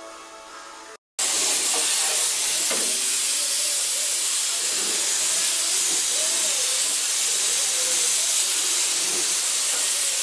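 Steady hiss of primer being sprayed onto the sheet-metal trunk floor of a car, starting about a second in after a moment of music and a brief gap.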